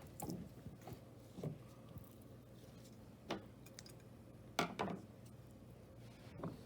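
Slime being handled, with a handful of short, irregular squishes and clicks, the loudest pair about two-thirds of the way in.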